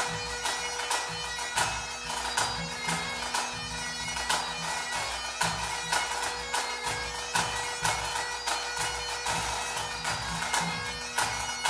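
Two Great Highland bagpipes playing a tune over their steady drones, with snare, tenor and bass drums striking throughout in a pipe band accompaniment.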